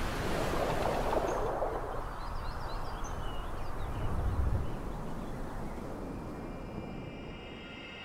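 Outdoor rushing noise that fades over the seconds, with a brief low rumble about four seconds in and a few faint high bird chirps around three seconds in.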